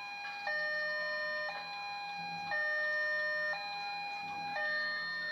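Railway level-crossing warning alarm sounding: two electronic chimes alternate about once a second. It signals that a train is approaching and the crossing is closing.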